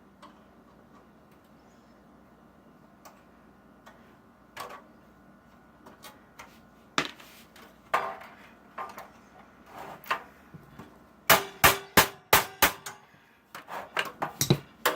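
Metal tools knocking on a metal computer part while a stuck screw is worked loose: scattered taps, then a quick run of about six sharp hammer strikes about three-quarters of the way through, and more knocks near the end.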